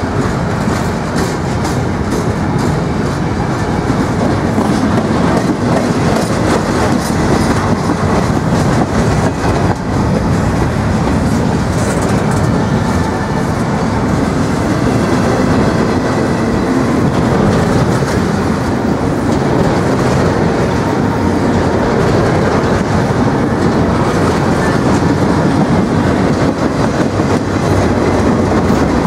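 Empty double-stack intermodal well cars rolling past at track speed: a loud, steady rumble of steel wheels on rail, with a continual run of clicks as the wheels pass over rail joints.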